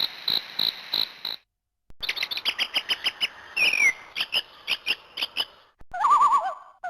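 Canu my5000 mobile phone ringtones playing one after another. First comes a rapid run of high electronic chirps like a bird, then, after a short pause, a second chirping, twittering tone with a falling glide. Near the end a warbling electronic trill starts, wobbling up and down.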